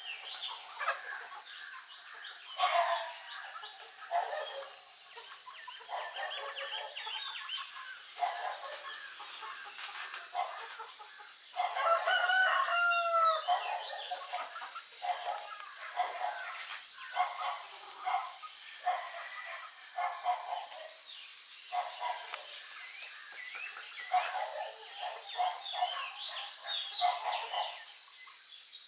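Short animal calls repeating every second or so over a steady high-pitched hiss, with a longer gliding call about twelve seconds in.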